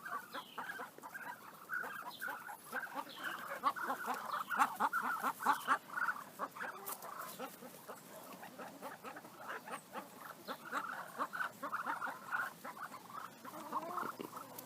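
A flock of farmyard poultry calling all together: a dense, rapid chatter of short clucks and chirps, busiest about four to six seconds in.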